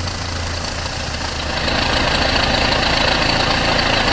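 BMW E90 320i four-cylinder petrol engine idling with a rattle from the serpentine belt tensioner, which the owner reckons is worn out. The sound gets louder and brighter about a second and a half in.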